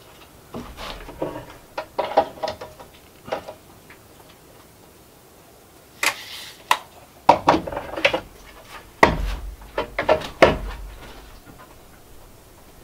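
Irregular knocks and taps of a long spirit level and a tape measure being set down and shifted on a wooden plank countertop. They come in two bunches, with a short scrape about six seconds in and the loudest knocks between about seven and eleven seconds.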